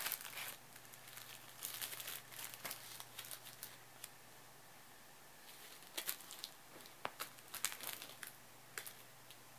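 Cellophane crinkled in a hand, in irregular bursts of crackling with a pause of about a second and a half midway.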